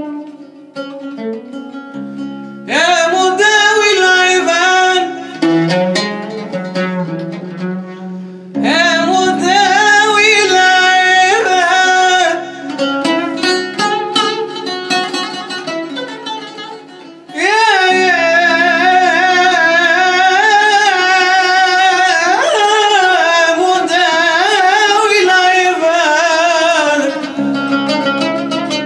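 Arabic nasheed: a male singer's long, ornamented sung phrases, three in all, with a plucked string instrument playing between them and alone at the start and end.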